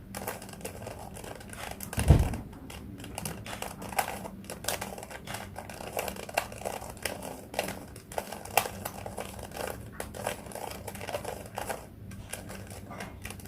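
Plastic 3x3 Rubik's cube being twisted layer by layer: a steady run of quick clicks and rattles as the faces turn. A dull thump about two seconds in.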